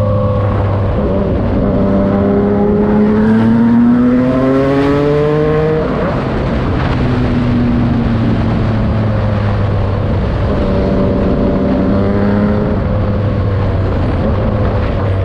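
Yamaha MT-09's inline three-cylinder engine through a Racefit Slash aftermarket exhaust, pulling up through the revs: the pitch climbs for about five seconds, drops abruptly, then rises again more gently and eases off near the end.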